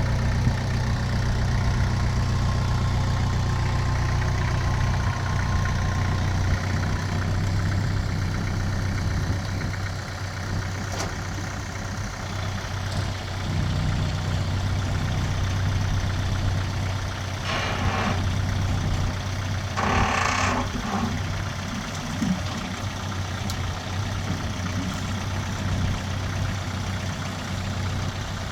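Kubota farm tractor's diesel engine running steadily at low revs. Two short noisy bursts stand out about two-thirds of the way through.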